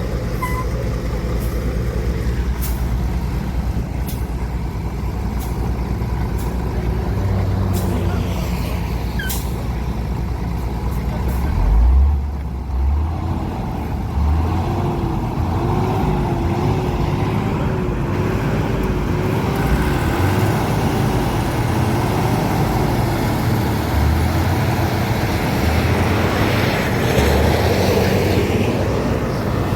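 Heavy diesel road-construction machinery such as an asphalt paver and trucks running steadily, with heavy low thuds about twelve seconds in and again later, and a wavering whine for several seconds in the middle.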